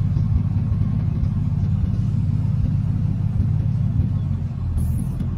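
Car engine running with a steady low rumble, heard from inside the cabin as the car rolls slowly.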